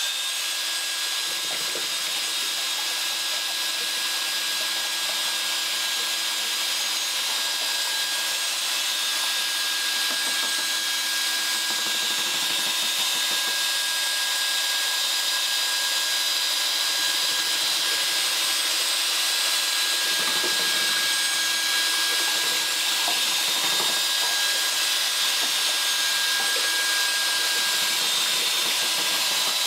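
Electric drill running at a steady speed, spinning a stainless steel Cyklone paddle mixer in a tin of water-based paint that had separated completely, stirring it back to usable paint. It switches on right at the start with a steady motor whine.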